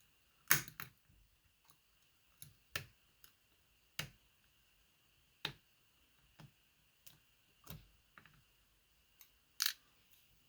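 A dozen or so sharp, irregular small metallic clicks and taps as an old C-clip remover works at the retaining clip on the back of a Medeco Biaxial lock cylinder, with the loudest clicks about half a second in and near the end.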